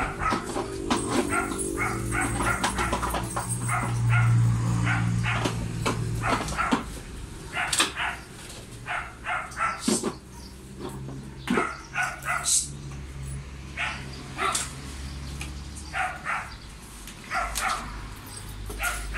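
A dog barking over and over in short barks, one to two a second with brief pauses, over a low steady hum.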